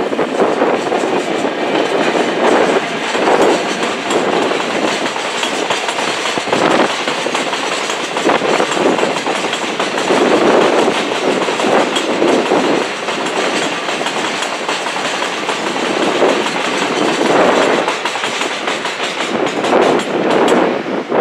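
Hopper wagons of a Chichibu Railway ore freight train rolling past behind an electric locomotive. Their wheels clatter over the rail joints in repeated, uneven pulses, easing off near the end as the last wagon goes by.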